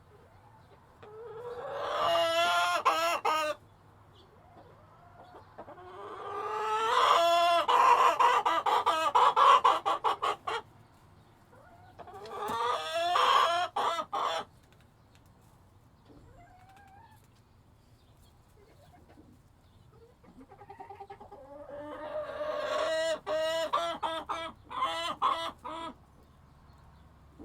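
Chickens calling in four bouts: each starts with pitched calls rising in level and breaks off into a quick run of short clucks, with quiet gaps in between.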